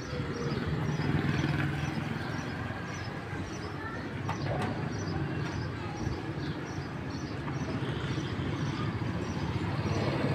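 Small motorcycle engine running steadily, louder about a second in and again near the end as a motorcycle rides past. A faint high chirp repeats about every two-thirds of a second.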